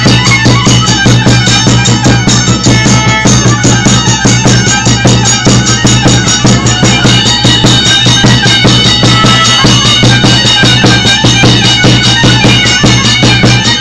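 Instrumental music: a steady low drone under a high melody, with a fast, even beat.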